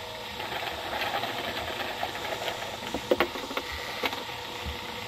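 A white plastic sack crackling and flapping as it is waved around and against a horse, with a few sharp snaps about three seconds in and once more a second later, over a steady faint hum.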